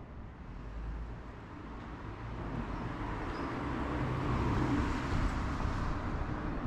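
A car driving past on the street: engine and tyre noise grows louder, peaks about two-thirds of the way through, then eases off slightly near the end.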